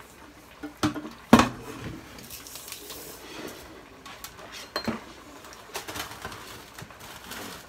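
Kitchen clatter as cookware and a large metal can are knocked and set down on the countertop: two sharp clanks about a second in, the second the loudest, then lighter clinks around five and six seconds in.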